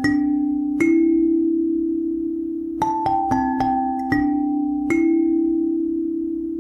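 Background music: bell-like mallet-percussion notes over a held low note, with a pause in the struck notes from about one to three seconds in.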